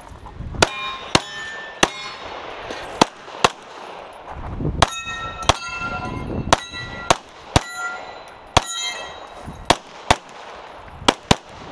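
About fifteen pistol shots, fired in quick pairs and singles, from a pistol fitted with a Grey Guns Lockwood slide kit. Several shots are followed by the ringing of steel targets being hit.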